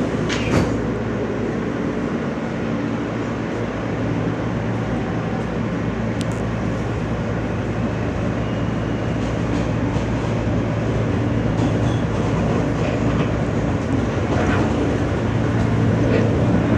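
R160 subway car running between stations, heard from inside the car: a steady motor hum over rolling wheel and rail noise, with a few sharp clicks from the wheels over the track. It grows slightly louder near the end.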